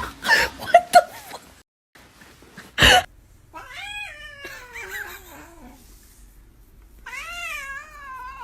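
A domestic cat meowing in long, drawn-out yowls. One slides down in pitch over about three seconds, and another rises and falls near the end. A single sharp knock comes about three seconds in.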